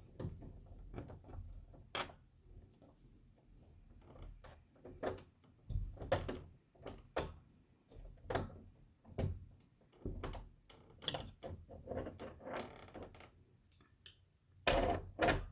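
Irregular small clicks, clacks and knocks of a metal door lever handle set being handled and fitted, its handle being taken off and swapped on the rose and latch.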